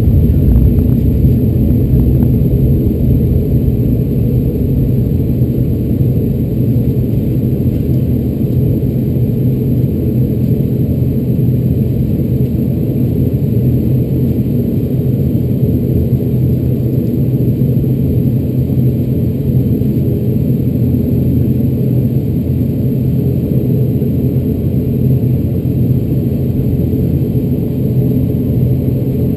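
ATR 72-600's Pratt & Whitney PW127M turboprop engine and propeller running while the aircraft taxis, heard from inside the cabin: a steady low drone with a humming propeller tone.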